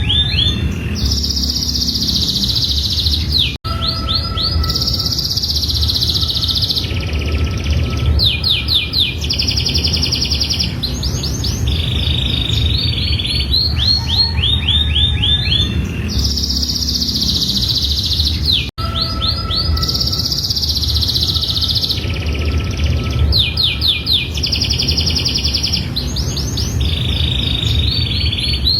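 Domestic canary singing a long, continuous song: phrases of quick repeated falling notes alternate with buzzy rolls and trills, over a steady low hum. The same stretch of song repeats about every 15 seconds, with a brief dropout before each repeat.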